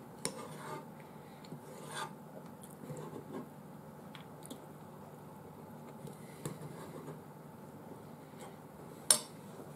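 Faint eating and handling sounds close to the microphone: soft rubbing and scattered small clicks, with one sharp click about nine seconds in.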